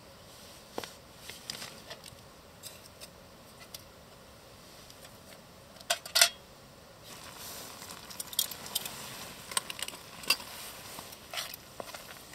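Steel camping pot and mug being handled, clinking lightly now and then, with two sharp ringing clinks about six seconds in. From about seven seconds a faint steady hiss runs beneath further clinks.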